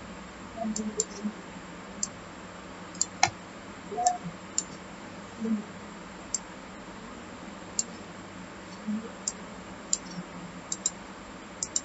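Computer mouse and keyboard clicks, single sharp clicks scattered about once a second.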